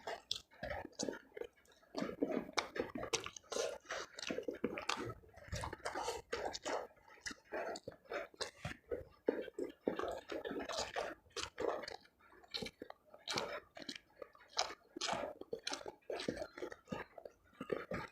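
Close-miked chewing of a mouthful of food: a dense, irregular run of small wet mouth clicks and smacks, with a little crunching.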